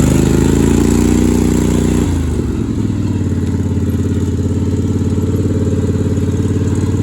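Engine of a small off-road vehicle running at raised revs that slowly sag. About two seconds in the revs drop suddenly and the engine settles into a steady idle.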